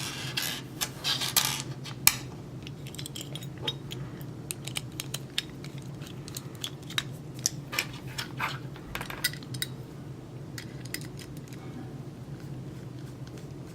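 Small metal clicks and clinks of an Andersen patio door lock's keyed exterior trim parts being handled, with a quick flurry at the start and then scattered single clicks. A steady low hum sits underneath.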